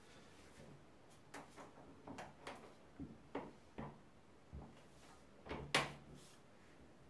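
Irregular light knocks and clicks from a wooden door and its handle, about ten in all. The loudest is a sharp knock near the end.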